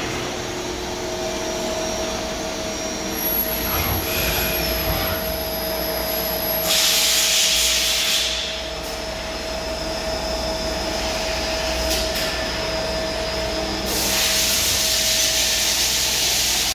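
Steady machine hum with a constant tone from a powered-up KIA KIT 30B CNC lathe and the machinery around it. Two spells of louder hissing come in, about seven seconds in and again near the end.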